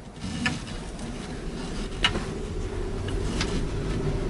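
SAM electric three-wheeler pulling away, heard from inside the cabin: a low hum and rumble from the electric drive and the road, growing steadily louder as it gathers speed, with a few light clicks.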